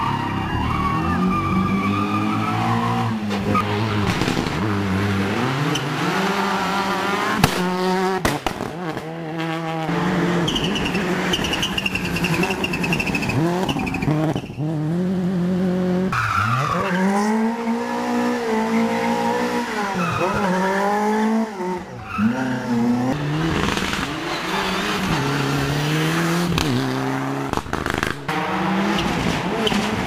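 Rally car engines revving hard one car after another, climbing through the gears and dropping in pitch at each shift and as each car passes, with tyres squealing.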